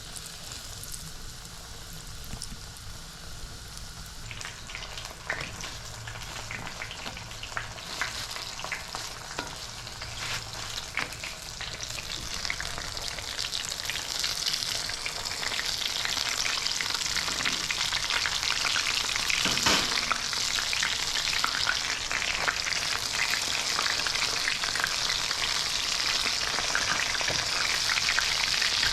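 Hot oil sizzling and crackling as breaded fish fillets fry, building up about four seconds in and getting louder still about halfway through.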